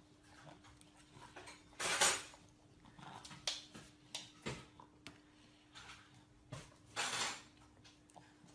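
Plastic fork tapping and scraping on a plastic plate in small, quiet clicks, with two short rushing noises, one about two seconds in and one near the end, over a faint steady hum.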